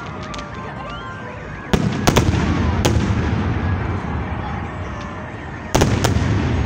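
Aerial firework shells bursting overhead: a cluster of loud bangs about two seconds in and another pair near the end, over a steady low rumble.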